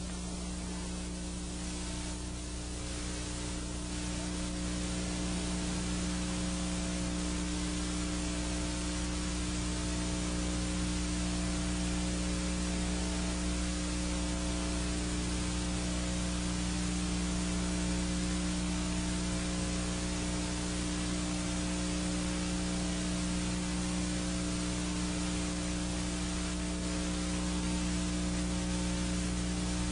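Steady static hiss with a low electrical hum made of several steady tones, unchanging throughout.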